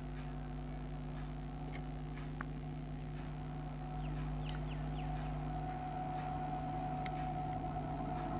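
WAG-9 electric locomotive with a double-stack container freight train approaching, a steady hum with one tone growing stronger about halfway through. Short bird chirps come through about four to five seconds in and again near seven seconds.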